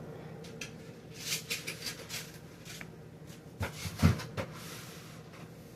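Items being moved and set down on refrigerator shelves: a string of light knocks and clunks, the loudest about four seconds in.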